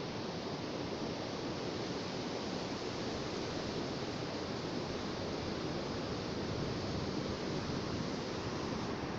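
Sea surf washing in a steady, even rush of noise.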